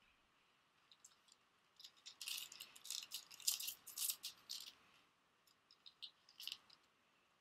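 Foil booster-pack wrappers crinkling and crackling as a pack is picked out of a box of packs. There is a dense run of crackles lasting about three seconds, then a few lighter crinkles near the end.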